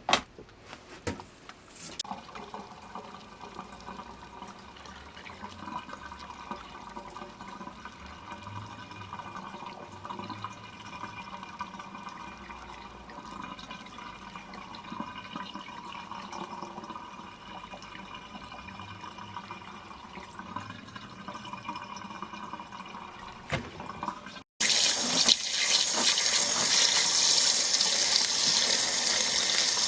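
Portable twin-tub washing machine rinsing a load: water sloshing with a faint steady motor hum. After a sudden cut near the end, a much louder steady rush of water.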